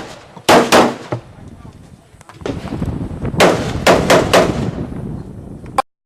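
AR-15 rifle shots fired in quick strings: two sharp shots close together about half a second in, then three or four more in rapid succession a little past the middle. The sound cuts off abruptly near the end.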